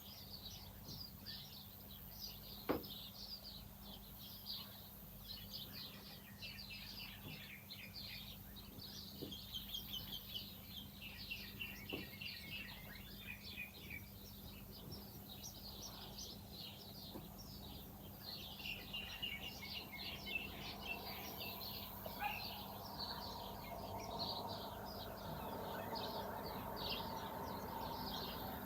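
Small birds chirping and twittering continuously in quick, high calls, with a few sharp clicks. About two-thirds of the way in a steady rushing noise comes up beneath them and grows toward the end.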